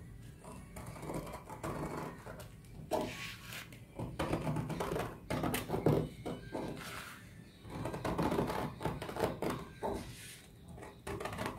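Scissors cutting through brown pattern paper along a curved line: a run of uneven snips and crunches of the blades closing on the paper.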